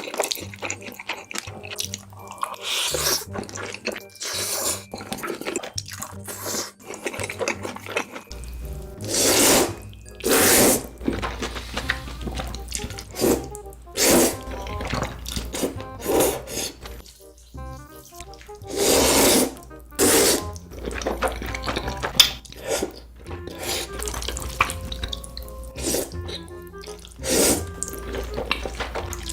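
Close-miked noodle slurping in ASMR mukbang style: a string of wet slurps, each up to about a second long, with music underneath.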